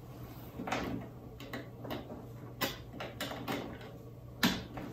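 Hands working the power cable and connectors of a Raspberry Pi 5 on a desk: a run of irregular small clicks and knocks, the sharpest near the end, over a faint steady hum.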